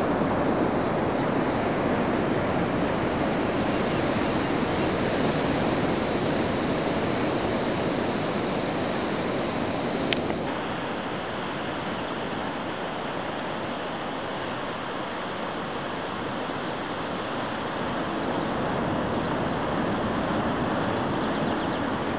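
Ocean surf breaking on a beach: a steady wash of waves, with a single short click about ten seconds in.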